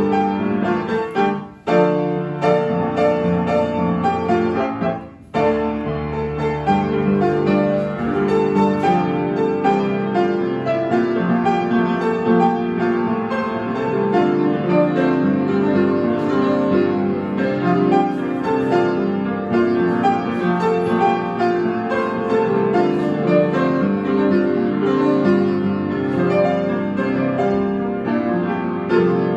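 Kawai upright piano played live, a lively arrangement of a pop song with full chords. The playing stops short twice in the first five seconds, then carries on without a break.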